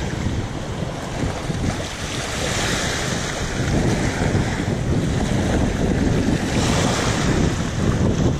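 Small ocean waves washing and hissing around the shallows at the shoreline, swelling twice and louder in the second half, with wind buffeting the microphone.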